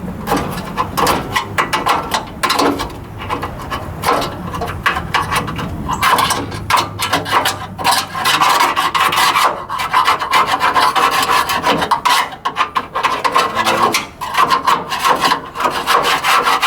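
Scraper scraping burnt soot and charred residue off a fire-damaged SUV, in rapid repeated rasping strokes to loosen the buildup.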